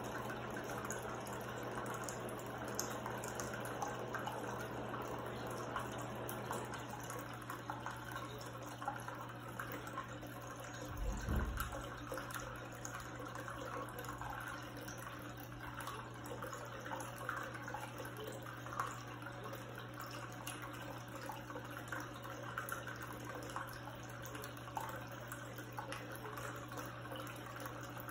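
Small tabletop cascading rock fountain: water trickling and splashing down its tiers over the steady low hum of its electric pump. One brief low thump about eleven seconds in.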